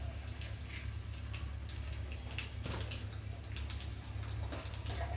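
Hot cooking oil crackling and spitting on a gas stove: irregular sharp pops over a steady low hum.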